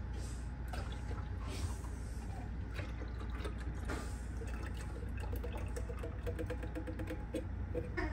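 Evaporated milk poured from a can into a glass jar of horchata: a stream of liquid running into liquid, with small clicks of the can against the jar rim.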